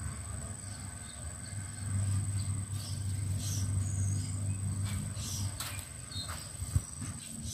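Steady high-pitched insect chirring, with a low rumble underneath that swells for a few seconds in the middle and a few faint scattered chirps.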